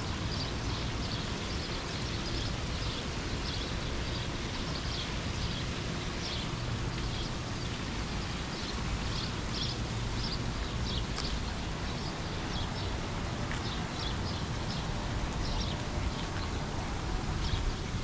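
Birds chirping over and over in short calls, over a steady low background rumble.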